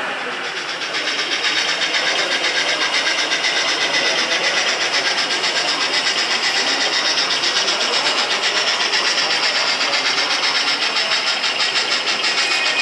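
O-scale model steam locomotive running past with a rapid, even chuffing rhythm of about six beats a second. A steady high tone joins near the end.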